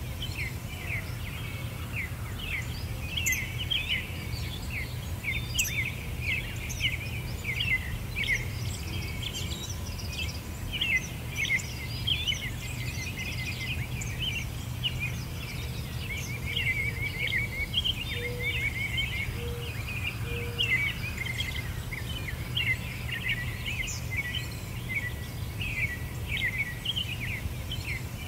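Many small birds chirping continuously in a dense chorus of quick, high calls, over a steady low hum.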